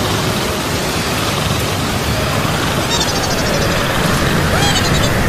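Steady rushing noise with a low rumble underneath. A few short, faint chirps that rise and fall sound near the middle and again near the end.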